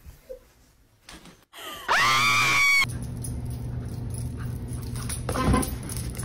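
A shrill scream about two seconds in: it rises quickly in pitch, holds for about a second and cuts off. A steady low hum follows.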